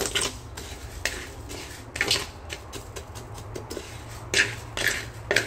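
Spatula stirring and scraping dark-roasted rice grains around a pan in irregular strokes, with louder scrapes about two seconds in and again around four and a half seconds. A steady low hum runs underneath.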